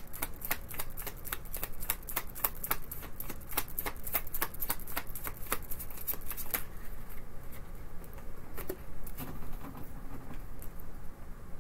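A deck of tarot cards being shuffled by hand: a quick, uneven run of card clicks and slaps for about the first six or seven seconds, then only a few scattered taps as the cards are handled.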